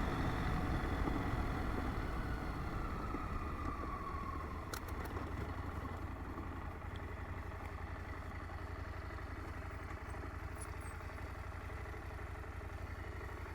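KTM 890 Adventure R parallel-twin motorcycle engine slowing down, with a whine falling in pitch over the first few seconds, then running steadily at low revs with a low rumble, gradually getting quieter.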